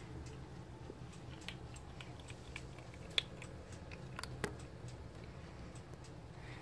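Kitten eating from a bowl: scattered small clicks and crunches of chewing, the sharpest about three seconds in, over a steady low hum.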